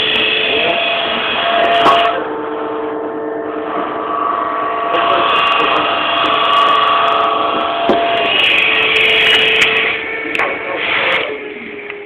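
Woodworking power tool running while cutting wood: a steady whine over rasping noise, its pitch shifting every few seconds, with a sharp knock about two seconds in and another near eight seconds.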